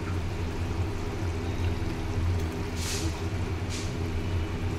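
Ladle stirring a simmering spinach-and-paneer curry in an iron kadai, with two short scraping hisses about three seconds in, over a steady low hum.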